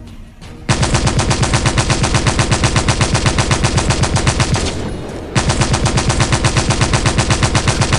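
Blue battery-powered toy rifle playing its electronic machine-gun sound effect: a rapid, even rattle of shots starting under a second in, fading out a little before five seconds, then starting again straight away.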